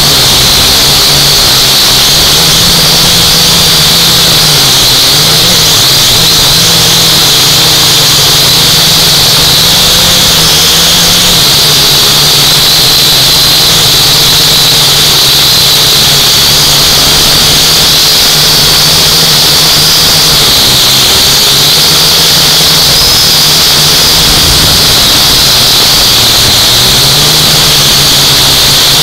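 UDI U818A quadcopter's small electric motors and propellers, heard close up through the drone's own camera: a loud, steady whine whose pitch wavers slightly as the motors adjust to hold and steer the flight.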